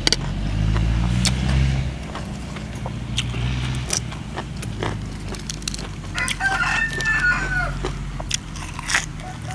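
A rooster crows once about six seconds in, one drawn-out call that bends down at its end. Around it are scattered sharp crunches and clicks of someone biting and breaking crisp raw vegetables, over a low rumble that is loudest in the first two seconds.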